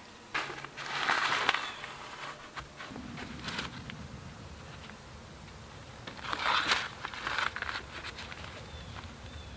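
Two bursts of crunching and rustling, about a second in and again near seven seconds, with a few light clicks in between: someone moving about and handling sticks on a forest floor.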